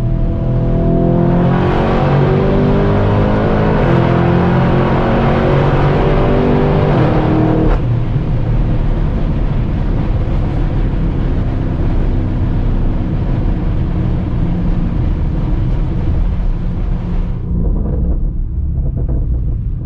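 Lamborghini Urus twin-turbo V8 with a Capristo straight-pipe exhaust accelerating hard, its note rising through one upshift about four seconds in. About eight seconds in it lifts off and settles to a steady, lower cruising note, which turns duller near the end.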